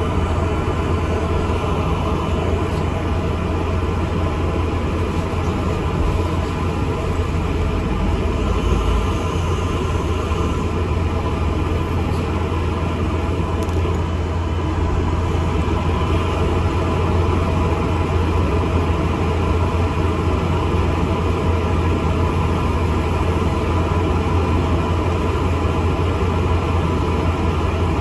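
ADL Enviro400 MMC double-decker bus under way: a steady low engine drone mixed with road and rattle noise.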